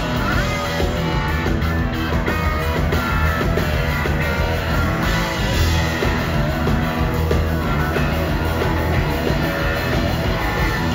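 Live rock band playing loud: electric guitar over bass and drums, with no singing.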